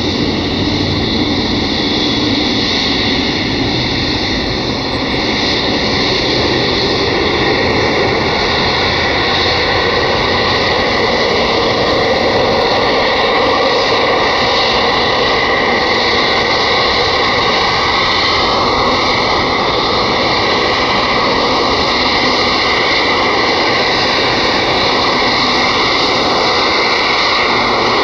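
Boeing 777F's GE90 turbofan engines at taxi power as the freighter taxis past: a steady jet whine over a broad rush of engine noise.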